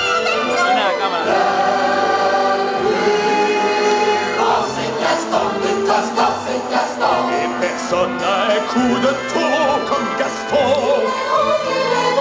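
Stage-show soundtrack music with singing and a choir-like backing, playing continuously at a steady loud level.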